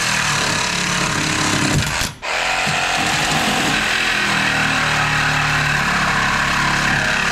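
Reciprocating saw (Sawzall) cutting through a steel vehicle frame rail. It runs loud and steady, stops for a moment about two seconds in, then starts again.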